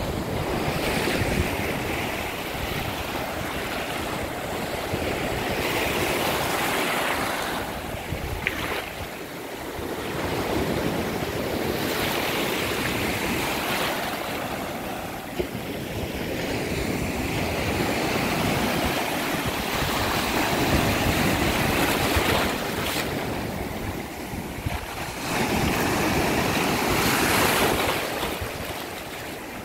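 Small Gulf surf breaking and washing foamily up the sand at the water's edge, the rush swelling louder every few seconds as each wave comes in, then easing.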